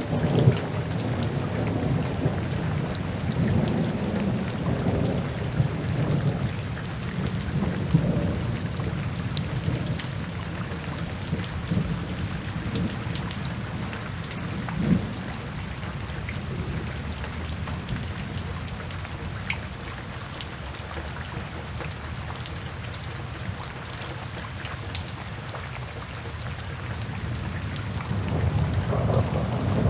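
Steady rain with a distant thunder rumble. The low rumble is strongest over the first ten seconds, eases off, then builds again near the end, with scattered ticks of single drops over the hiss of the rain.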